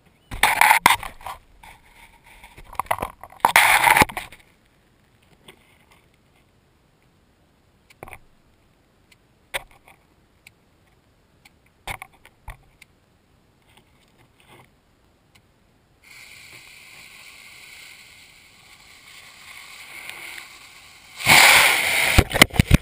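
Stick-mounted firework rocket heard from a camera strapped to its side: a steady hiss from the lit fuse, then the motor igniting a few seconds later with a loud rushing whoosh as it lifts off. Earlier come two loud rustling bursts and scattered small clicks.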